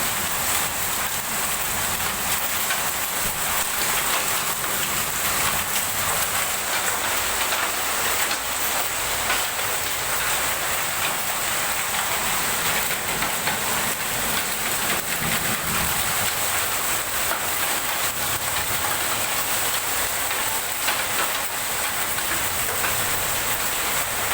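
Heavy rain mixed with small hailstones pelting down: a steady, dense hiss full of fine ticks.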